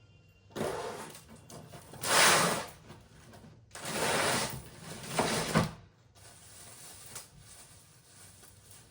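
Suitcase being unzipped and opened: four long, raspy zipper pulls in the first six seconds, then faint handling.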